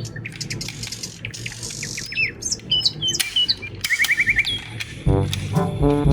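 Birds chirping: short high calls and quick whistled glides, with a rapid trill about four seconds in. Music starts up about five seconds in.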